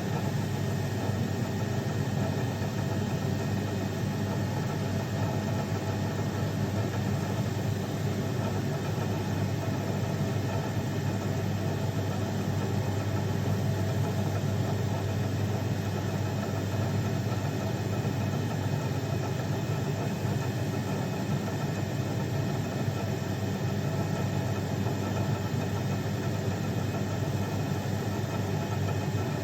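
Milling machine running steadily with an even, low hum while milling a snap ring groove for crankshaft roller bearings.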